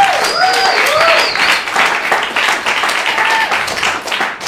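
Audience applauding, with a few rising-and-falling calls over the clapping in the first second and a half and again about three seconds in.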